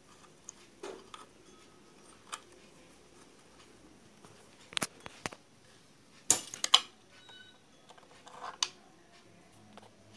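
Scattered clicks and knocks from hands and tools handling the parts of a flatlock sewing machine, with a quick cluster of sharper clicks about six seconds in.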